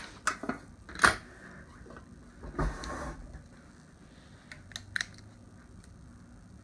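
Metallic clicks and a short scrape of a semi-automatic pistol being unloaded by hand: a sharp click about a second in, a brief rasp of the slide a little after the middle, then a few light clicks.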